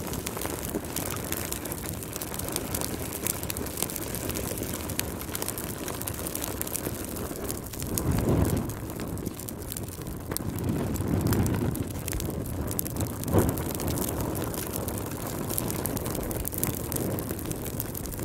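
Log fire burning in a fireplace: a steady rush of flames with frequent small crackles. The fire swells louder twice midway, and one sharp pop about two-thirds through is the loudest sound.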